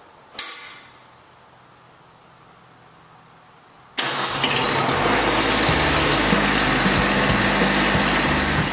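A single sharp metallic clunk, then about four seconds in an engine starts abruptly and keeps running loudly.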